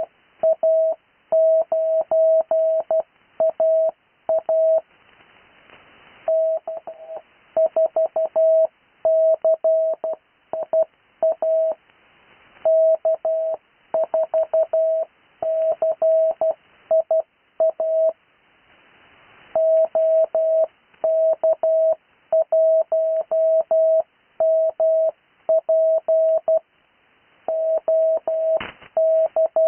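Morse code (CW) on a single steady pitch, keyed in short and long elements grouped into characters with pauses between groups: amateur radio call signs being sent for copying practice, each call sign sent twice. Faint hiss fills the gaps, and there is one sharp click near the end.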